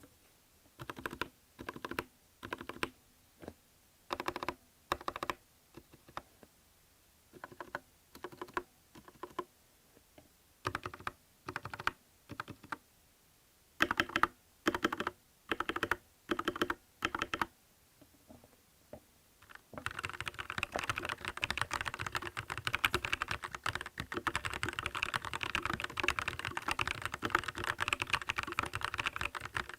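Monstargear Ninja87 Pro mechanical keyboard with Gateron Yellow switches and ABS keycaps being typed on. At first short groups of repeated keystrokes separated by pauses, then, about two thirds of the way in, continuous fast typing.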